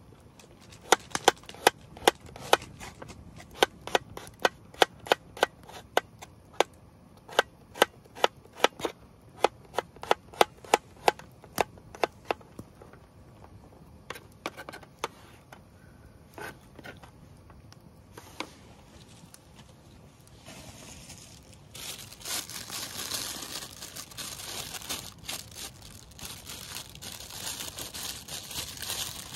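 Knife chopping on a cutting board, sharp knocks about two a second that thin out and stop about twelve seconds in. From about twenty-two seconds a steady rustling hiss sets in.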